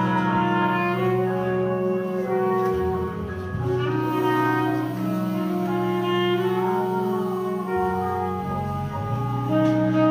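A small jazz horn section of saxophone, trombone and low reeds playing long sustained chords, changing chord every two to four seconds.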